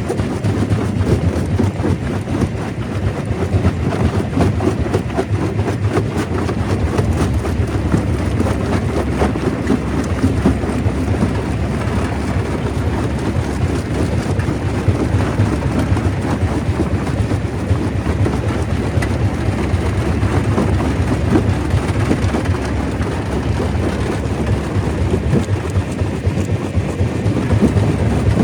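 Stone crusher running with rock passing through it: a steady heavy rumble packed with dense rattling and crunching.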